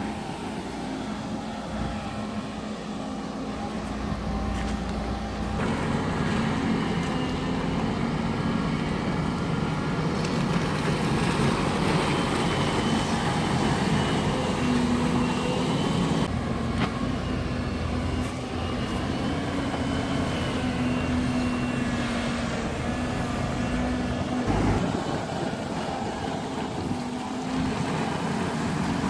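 Long-reach excavator's diesel engine running steadily as it digs mud, with a fainter high whine that rises and falls as the boom works.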